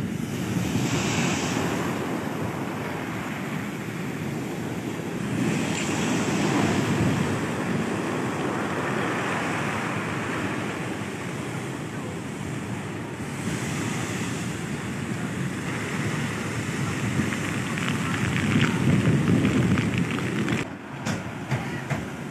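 Heavy storm surf crashing with strong typhoon wind buffeting the microphone, the roar swelling and easing every few seconds. Near the end it drops away abruptly to quieter wind with a few short knocks.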